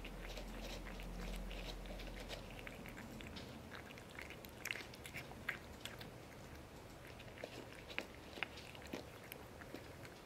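Cat eating from an aluminium foil tray: quick, irregular chewing and licking clicks, coming thicker in the second half.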